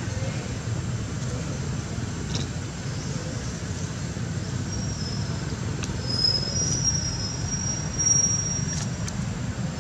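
Steady low outdoor rumble, with a few thin, high whistling notes in the second half and some faint clicks.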